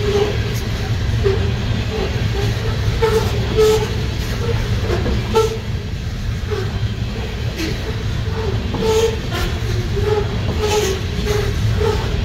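Freight train of open-top hopper cars rolling past close by: a steady rumble of steel wheels on rail, with frequent short wheel squeals and an occasional clack.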